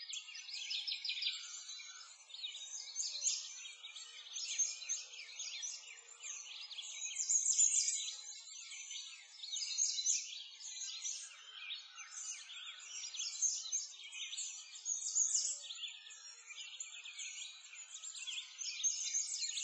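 A dense chorus of many small birds chirping and twittering without a break, the calls packed into a high, thin band.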